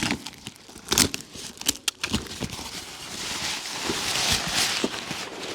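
A cardboard box being opened by hand: scattered clicks and crackles of the flaps and tape, then a steady rustle and crinkle of packing paper being pulled out.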